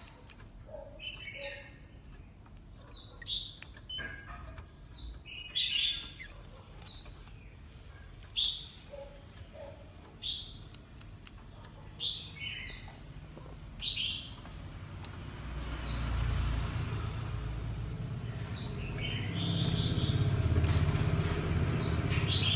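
Oriental magpie-robin giving a short call that falls in pitch, over and over, about once a second. In the last third a louder low rumble comes in under a few more calls.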